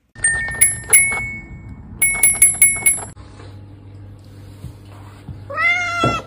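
Bright clinks that ring briefly, in two quick runs of several strikes each, then a cat meows once near the end.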